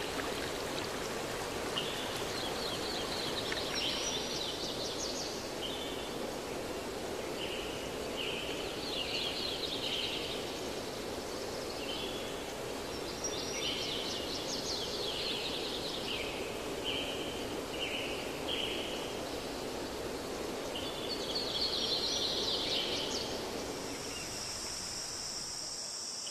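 Nature ambience: a steady rush of flowing water with birds chirping and trilling in short repeated phrases. Near the end, a steady high chirring of crickets comes in.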